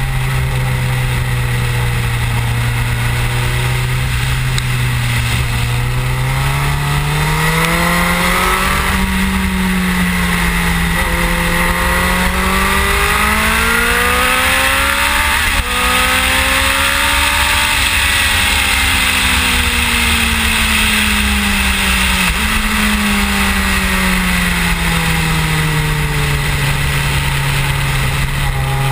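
Suzuki GSX-R1000 K7's inline-four engine heard from the fairing at track speed over steady wind rush. The note holds steady for the first few seconds, climbs and falls with throttle and gear changes through the middle, jumps up suddenly about twenty-two seconds in, then falls away near the end.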